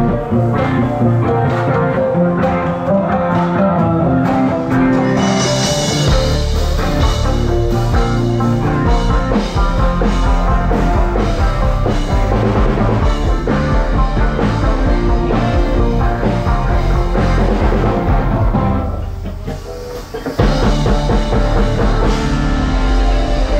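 Band playing rock music with drum kit and guitar. The music thins out briefly about nineteen seconds in, then comes back in at full level.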